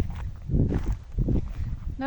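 Footsteps of a person walking, a series of soft irregular thuds about every half second, over a low rumble of wind on the microphone.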